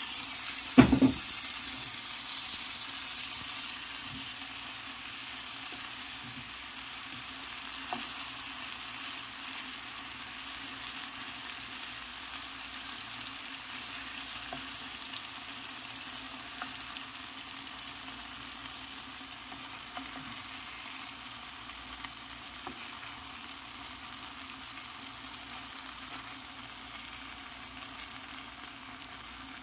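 Raw shrimp frying in a hot pan of spiced onion and tomato base, sizzling steadily while being stirred with a wooden spatula. A sharp knock about a second in; the sizzle then slowly dies down as the pan cools from the added shrimp.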